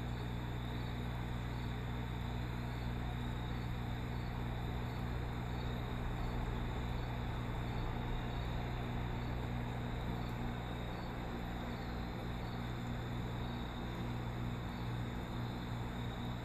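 Steady low electric hum with an even hiss of moving water, typical of an aquarium's filter or pump running, with a faint high pulsing repeating about twice a second.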